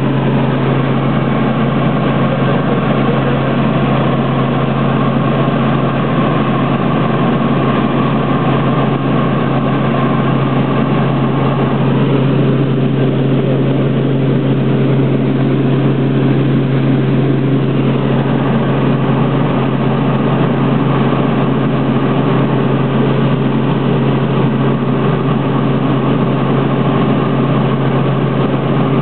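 Helicopter engine and rotor drone heard from inside the cabin in level flight: a loud, steady drone with a strong low hum.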